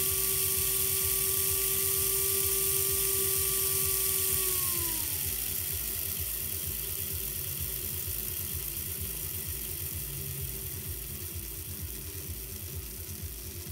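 Vintage Märklin 3005 (DA 800) H0 steam locomotive's electric motor and gears whining as the bare chassis runs on a roller stand. About five seconds in the whine falls in pitch and fades as the loco slows to a crawl, leaving a low rhythmic buzz.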